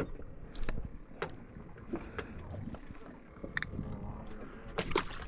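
Deck sounds of a fishing boat at sea: a steady low rumble with scattered short knocks and clicks, the loudest near the end.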